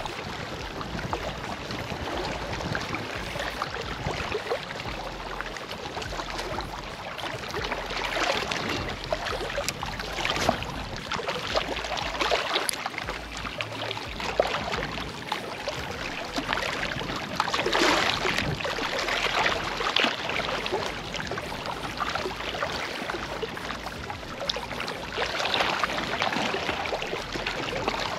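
Small waves lapping and splashing against a rocky shoreline, a steady wash broken by irregular small splashes that swell a little now and then.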